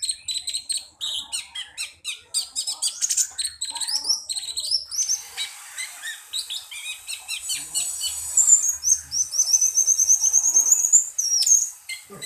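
Cucak cungkok songbird singing a rapid, high-pitched string of chirps and trills. About halfway through it breaks into a long, fast run of repeated notes that rises slightly in pitch before stopping near the end.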